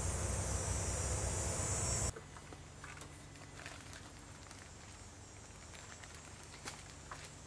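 Power drill running steadily, boring into hard wood, cuts off suddenly about two seconds in. After that, light knocks and rustling from handling the mineral fountain on the post.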